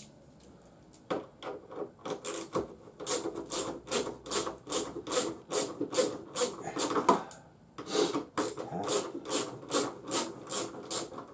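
Hand ratchet working Torx bolts loose on a motorcycle's tank panel: quick rasping ratchet strokes, about three a second, in two runs with a short break about seven and a half seconds in.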